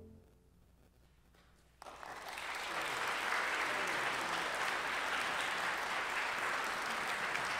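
A concert band's held closing chord cuts off at the start, leaving about two seconds of near silence, then audience applause starts suddenly and continues steadily.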